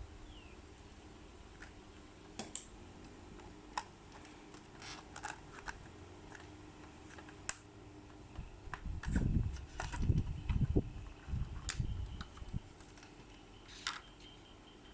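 Small plastic and packaging being handled during an unboxing: scattered sharp clicks and ticks, with a cluster of louder low thumps and rustling handling noise a little past the middle. A faint steady hum lies beneath.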